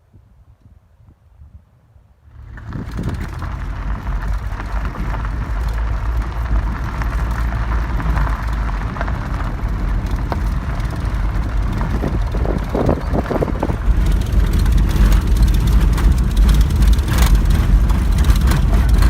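A motor vehicle's engine running, starting up suddenly about two seconds in after near quiet and then holding a steady, heavy low rumble.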